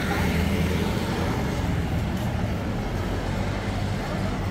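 Steady low engine hum of a motor vehicle over city street noise, a little stronger in the first second or two.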